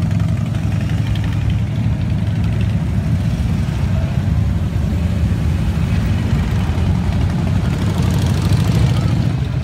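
Motorcycle engines running with a steady low rumble, a little louder near the end.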